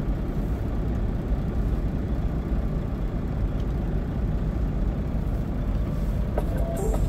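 Steady low rumbling background noise with no clear rhythm. Near the end, music from the creeper clip playing on the tablet begins, with short pitched notes and clicks.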